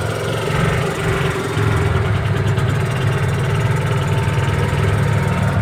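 Club Car Precedent golf cart's 13-horsepower Kawasaki gas engine running steadily as the cart drives along, getting a little louder about two seconds in.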